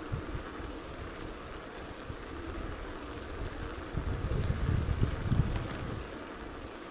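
Wind rumbling on the microphone over a steady rushing background, gusting harder about four to five and a half seconds in.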